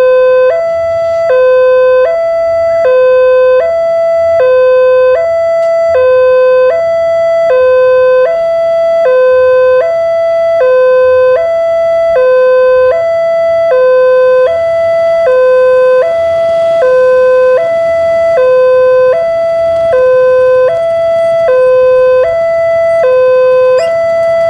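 Railway level-crossing warning alarm sounding from its pole loudspeaker: a loud two-tone signal alternating steadily between a lower and a higher tone, each held about three quarters of a second, warning that a train is approaching and the barrier is closing.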